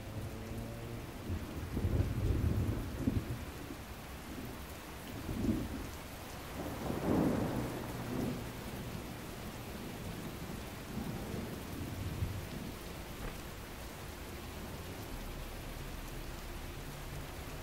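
Steady rain with low rolls of thunder, the loudest about two seconds in and again about seven seconds in.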